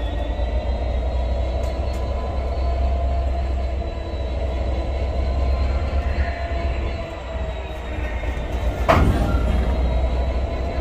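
Freightliner Class 66 diesel locomotive, its EMD two-stroke V12 running with a steady low drone and a thin high whine as it creeps forward at walking pace. About nine seconds in comes a single loud metallic clank as the loco buffers up against the hopper wagon to couple.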